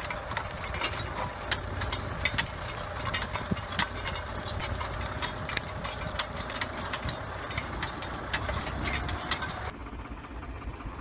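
Tractor engine running steadily as it pulls the hoe through stony soil, with frequent sharp clicks and knocks over it. About ten seconds in the clicking stops and the engine sounds quieter.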